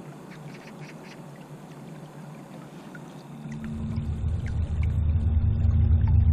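Faint water ticks, then about three and a half seconds in a small boat motor starts: a steady hum over a low rumble that grows louder.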